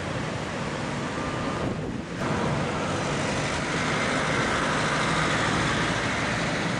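Steady outdoor rushing noise of traffic on a concrete road bridge over a flooded river, mixed with the flow of the swollen water, with a brief dip about two seconds in.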